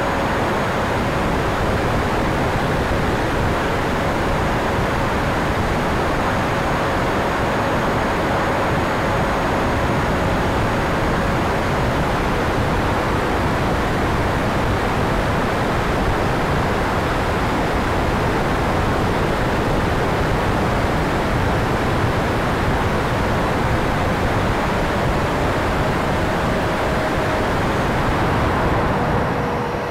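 E-flite Viper 70 mm electric ducted-fan jet in flight, heard from a camera on board: a steady rush of fan and airflow noise with a faint whine in it. The level drops a little at the very end.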